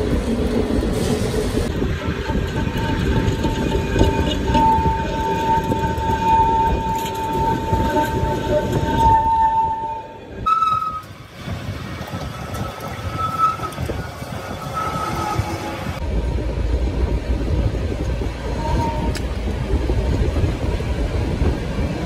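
Metal lathe running while its cutting tool turns down the end of a steel axle shaft, a steady rough grinding noise of the cut. For several seconds in the middle a thin ringing squeal from the tool rides on top.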